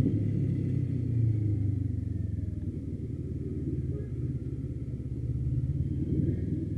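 CFMoto NK motorcycle engine running while riding slowly. It eases off in the middle and picks up again about five seconds in.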